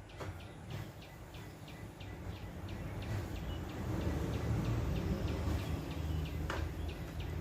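Outdoor ambience: a short high chirp repeating about three times a second, over a low rumble that grows louder from about two seconds in.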